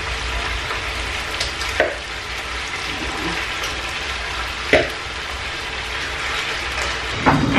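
Chicken tikka pieces sizzling as they fry in a pan, a steady hiss, with two sharp clinks of the utensil against the pan as the pieces are turned, about two seconds in and near five seconds.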